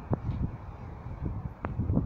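Wind buffeting the microphone as a low, gusty rumble, with two sharp clicks, one just after the start and one about a second and a half in.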